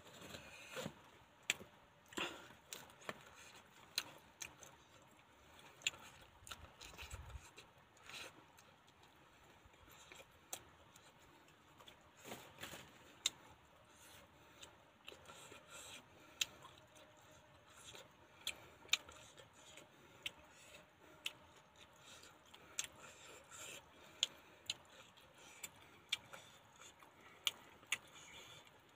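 A person eating with their hands: faint, irregular clicks and small smacks from picking kernels off a corn cob and chewing.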